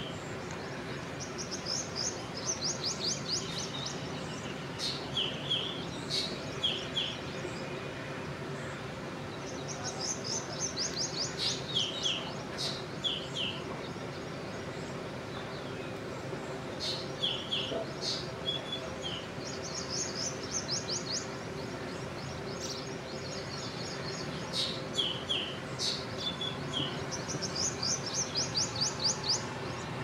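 Black drongo calling in repeated phrases: a fast, high trill of ticking notes, sharp clicks, and a few short, lower paired notes. The phrases come back about every six to eight seconds over a steady low hum.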